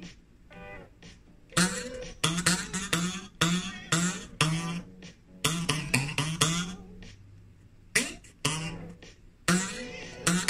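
A metal knife blade pressed over a table edge and plucked, twanging out a rhythmic melody of short decaying notes at changing pitches, with brief pauses between phrases.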